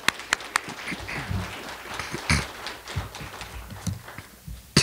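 An audience applauding, with a few sharp claps close to the microphone at the start; the applause fades out near the end.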